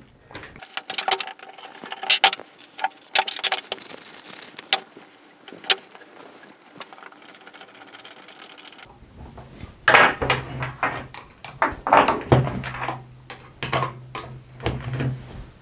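Metal clicks and scraping from handling the sliding contact on an old tubular wirewound power resistor as it is loosened, shifted along the winding and tightened. Several sharp clicks come in the first few seconds, and bursts of scraping follow later. A low hum starts about nine seconds in.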